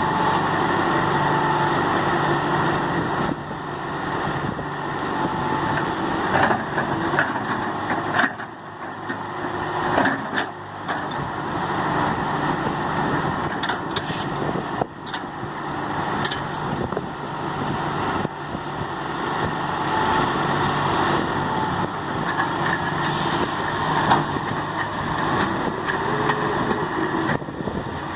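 John Deere 595D excavator's diesel engine running steadily under working load, with a few scattered knocks and clanks from the machine at work.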